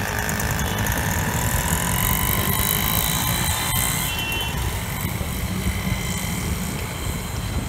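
Busy street traffic: a steady mix of engine rumble and road noise from passing vehicles.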